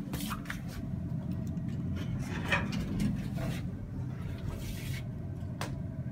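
Elevator car moving, a steady low rumble with a few light clicks and one sharp click near the end.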